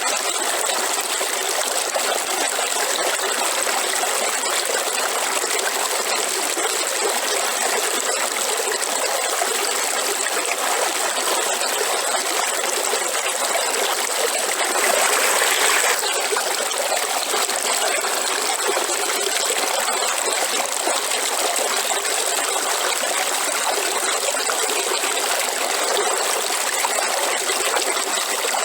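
River water flowing and trickling steadily, with a brief louder rush about halfway through.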